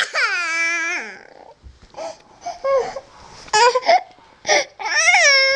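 A toddler crying: a high wail that falls in pitch over the first second, a few short whimpers, then a long, steady, high wail near the end.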